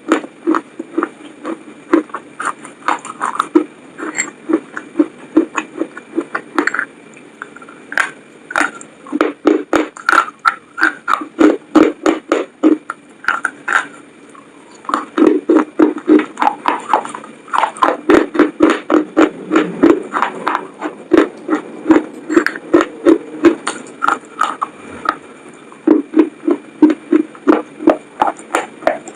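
Close-up wet chewing and mouth smacking on french fries, in a fast steady rhythm of a few chews a second with brief pauses between mouthfuls.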